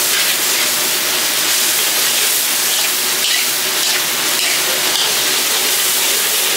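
Chopped onions sizzling steadily in hot oil in a steel wok, stirred with a metal ladle.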